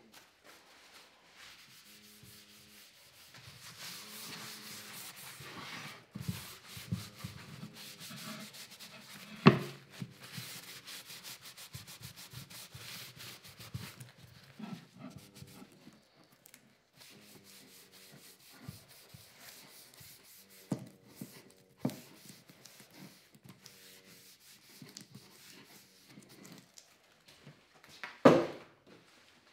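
A cloth rubbed back and forth over a spalted beech board, wiping on finish, in stretches of steady scrubbing. It is broken by a sharp knock about a third of the way in and a louder one near the end.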